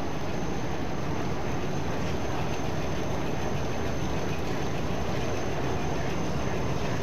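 High-speed rotogravure printing press running at a steady speed: an even, continuous machine noise from its turning rollers and drive, with a faint steady high whine above it.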